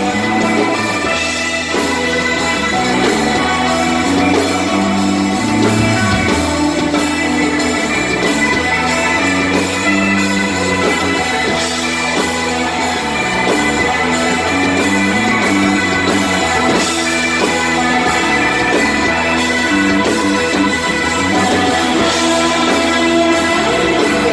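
A live rock band jamming loudly without vocals: electric guitar, bass guitar and a drum kit with regularly spaced cymbal hits.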